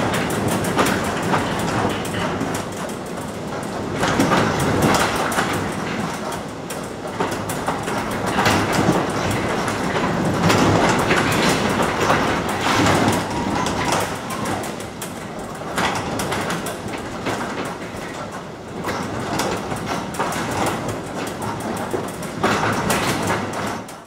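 Wooden sectional garage door rattling and clattering against its hinges and steel tracks as strong wind gusts push on it, over the rush of the wind. The noise swells and eases with the gusts.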